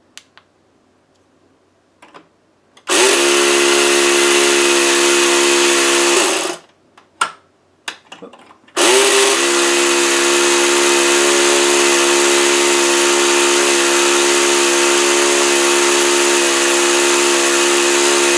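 Small electric motor inside a toy dashboard running its spinning road wheel, a steady mechanical hum with a hiss. It runs about three seconds, stops, a few clicks follow, then it starts again and keeps running.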